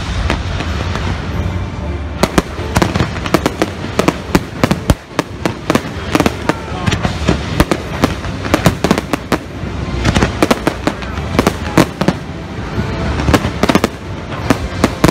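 Fireworks display over a lake: a loud burst at the start, then sharp bangs and crackles of exploding shells several times a second from about two seconds in, over a steady low rumble.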